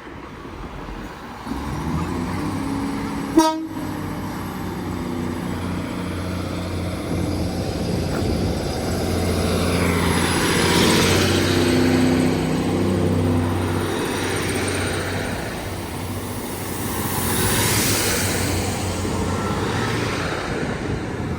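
Two coupled Class 150 Sprinter diesel multiple units pulling away: the underfloor diesel engines rev up about two seconds in, with one very short toot of the horn a moment later. The engine note then swells and eases as the train accelerates away.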